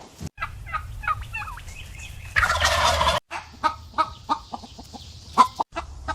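Birds calling in rapid runs of short notes, in abruptly cut segments, with a loud harsh rasping burst lasting under a second about two and a half seconds in.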